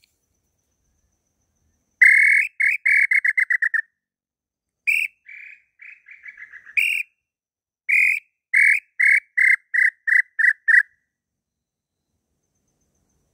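Wooden throat-type bird call (pio garganta) blown to imitate the tataupa tinamou (inhambu pé-roxo): three phrases of short whistled notes, each opening with a longer note and followed by a quick run of notes that speeds up. The middle phrase is mostly soft.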